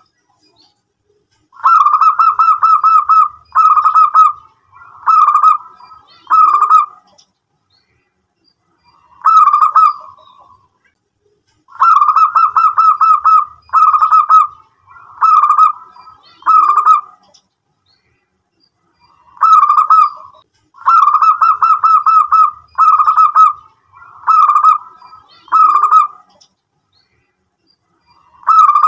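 Zebra dove (local-type perkutut) singing its cooing song. The song comes in bouts, each a longer run of rapid staccato coos followed by about three shorter bursts, with pauses of a few seconds between bouts.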